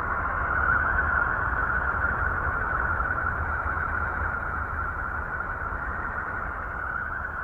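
A planetary 'space sound' recording: a steady rushing, hissing drone over a low rumble.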